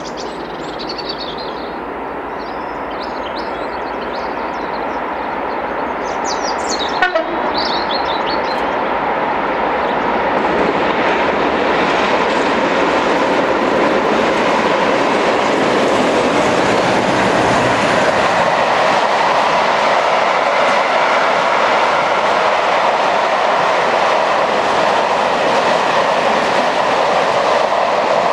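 Two Class 56 diesel locomotives working together, their Ruston V16 engines droning louder as they approach and pass at the head of a train of empty timber wagons, then the wagons' wheels rumbling and clattering over the rails. Birds chirp at first, and a brief sharp sound stands out about seven seconds in.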